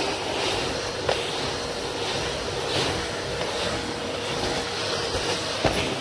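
Numatic Hetty cylinder vacuum cleaner running steadily as its floor nozzle is pushed back and forth over carpet.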